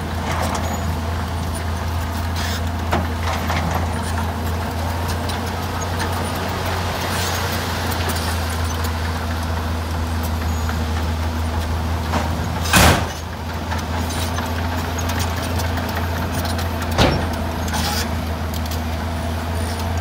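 Diesel dump truck engines running with a steady low drone while their tipper beds are raised and soil and rock slide out of them. A short, sharp burst of noise comes about thirteen seconds in, and a smaller one about four seconds later.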